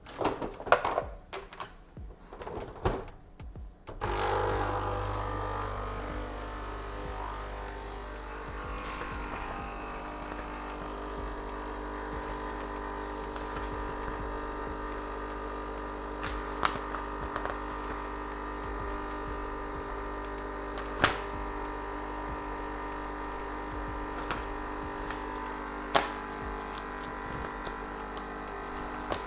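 A few light clinks and knocks, then about four seconds in a machine starts suddenly and runs steadily with a low hum and several held tones, with an occasional sharp tick.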